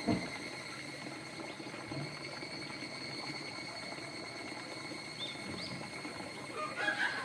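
A wooden hut door bangs shut with a single dull thud just after the start, over a steady high drone of insects singing. Near the end come a few short chirping calls.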